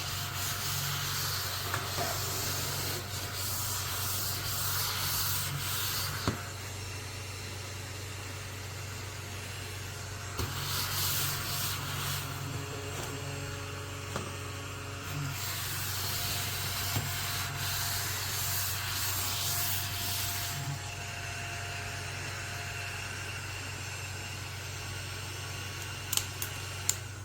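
Rubbing or brushing against a surface in stretches of a few seconds, over a steady low hum, with a couple of sharp clicks near the end.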